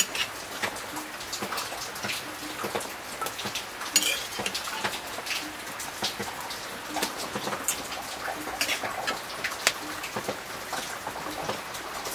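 Pork pieces sizzling and crackling in hot fat in a wok over a wood fire, a steady hiss full of irregular pops, with one louder crackle about four seconds in.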